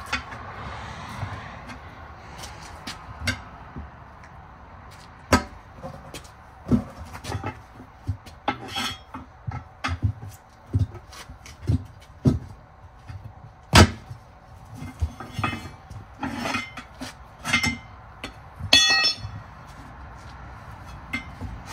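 Steel tire spoons clanking and clinking against a steel wheel rim as a tire is levered off by hand: irregular metal knocks, the loudest about two-thirds through, and a brief ringing clink a little later.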